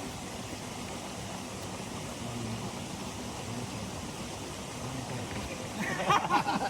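Steady outdoor background noise, with a person's voice briefly near the end.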